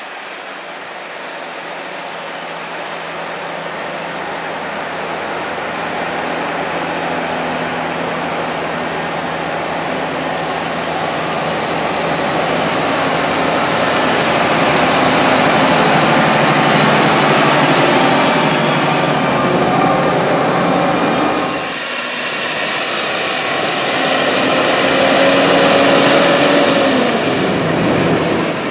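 Deutz-Fahr 9340 TTV tractor's 7.8-litre six-cylinder turbocharged diesel running under load as it pushes corn silage with a front blade. The sound grows louder over the first half as the tractor comes closer.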